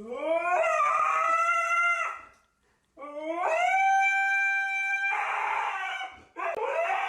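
A dog howling: two long howls, each sliding up in pitch and then held, with a third starting near the end.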